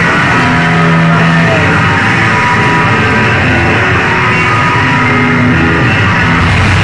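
Loud live rock music from a band in concert, with sustained, dense instrumental sound. The recording is overloaded and of poor quality.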